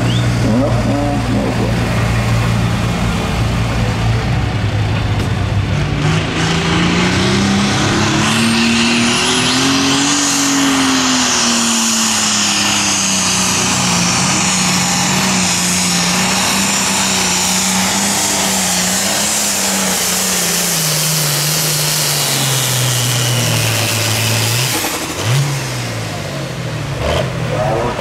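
Hot farm class pulling tractor's diesel engine working hard under load during a pull. The revs climb for several seconds, hold high through the run, then fall away and cut off near the end.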